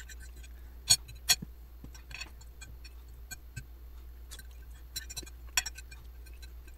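Metal fork and spoon clicking and scraping against a ceramic plate while twirling the last strands of spaghettini, with two sharp clinks about a second in and scattered lighter taps after, over a low steady hum.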